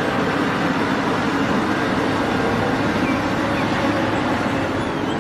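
Heavy diesel engines of a Caterpillar 6015B hydraulic mining excavator and its haul truck running steadily while the excavator dumps sand into the truck: a dense, even engine rumble with a low steady hum.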